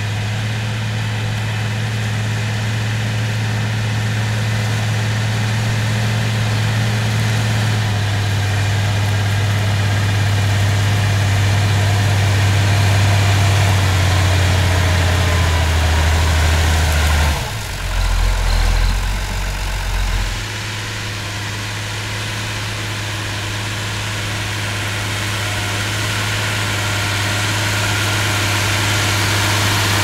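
Massey Ferguson 399 tractor's diesel engine running under load as it pulls a two-furrow plough through the soil: a steady low drone whose pitch drops a couple of times, with a brief deeper rumble about two-thirds of the way in.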